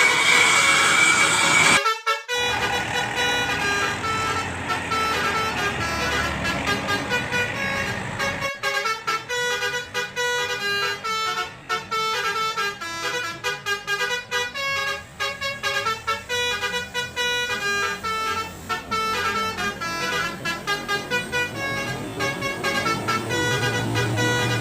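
Basuri 'telolet' multi-tone bus horn playing a quick tune of stepped notes over bus engine noise. A loud rushing noise cuts off abruptly about two seconds in, and the horn tune is strongest from about eight seconds on.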